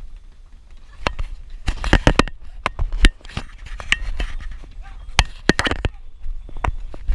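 Donkey hooves clopping and scraping unevenly on stone steps as the donkeys climb, over a low wind rumble on the microphone.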